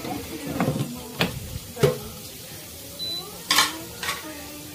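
A handful of sharp clattering knocks of hard kitchenware, the loudest about three and a half seconds in, with a short high beep just before it.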